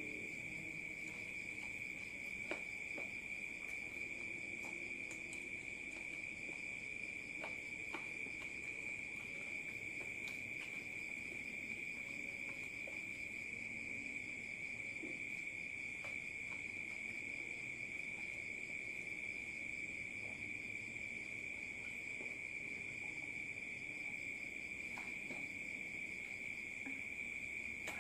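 A steady high-pitched insect trill, unbroken and even in pitch, with a few faint clicks and soft mouth sounds of eating.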